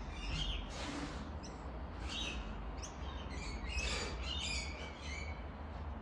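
Birds chirping in short, scattered notes over a steady low rumble.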